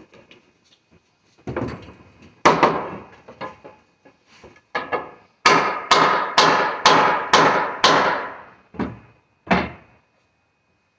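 Pneumatic nail gun firing nails into a wooden door frame: a string of sharp shots, each ringing briefly through the frame, with a quick run of six about two a second in the middle.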